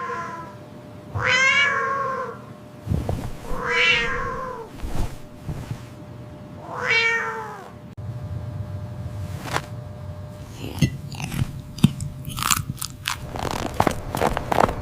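A cat meowing three times, each meow a long drawn-out call, followed by a run of quick clicks and crunching noises that grows busier toward the end.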